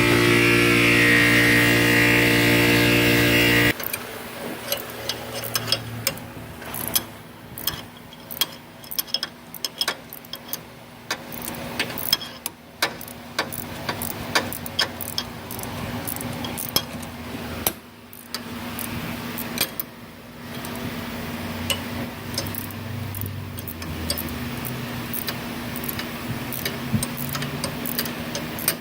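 A power tool's motor running steadily, then cutting off abruptly a few seconds in. After that come irregular metallic clicks and ticks of hand tools working the nut on a front shock absorber's stem as it is tightened.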